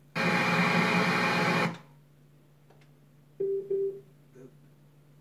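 Polaroid wireless tower speaker being switched between modes. It gives a loud burst of noise lasting about a second and a half that cuts off abruptly, then two short low beeps about halfway through, over a steady low hum.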